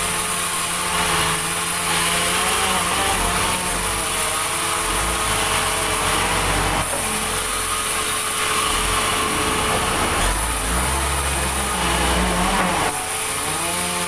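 Large vertical band saw running and ripping a log lengthwise, a loud steady machine sound whose tones waver as the blade works through the wood.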